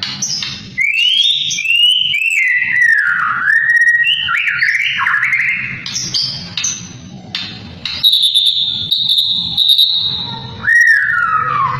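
White-rumped shama singing: a loud run of gliding whistled phrases rising and falling between low and high notes, a long steady high whistle held for a couple of seconds about eight seconds in, then a falling whistle near the end.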